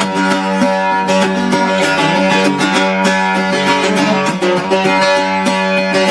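Octave mandolin (an Arrow built by Paul Lestock) played solo with a pick, freshly restrung: an instrumental passage of quickly picked notes over a ringing low drone.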